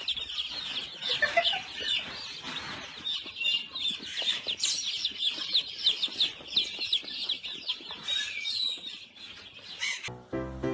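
Birds calling: many short, high chirps and calls overlapping quickly. They stop abruptly near the end, where music takes over.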